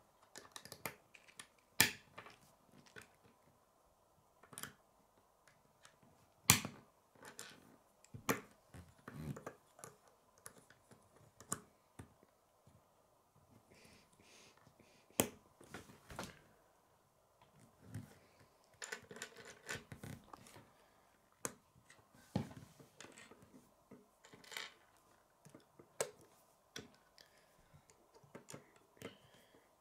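Plastic K'nex pieces being handled and snapped together: irregular sharp clicks and small knocks, a few louder snaps among them, with light knocks of parts against the wooden tabletop.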